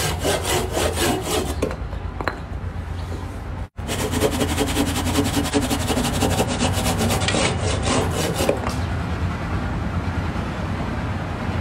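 Self-made two-way hand saw cutting through a log with fast back-and-forth strokes, about five a second, the teeth rasping through the wood. There is a brief gap partway through, and the strokes stop near the end.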